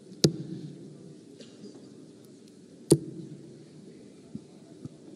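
Two steel-tip darts hitting a bristle dartboard, about two and a half seconds apart, each a sharp click. A low crowd hum runs underneath.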